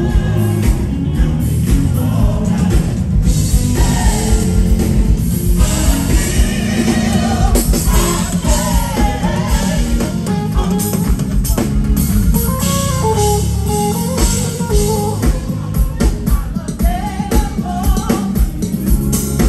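Live band playing amplified music with singing over bass, drum kit and guitar.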